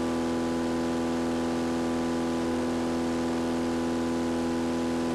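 BMW DTM racing V8 running on an engine test bench, held at one steady speed with an even, unchanging note. The sound cuts off abruptly at the very end.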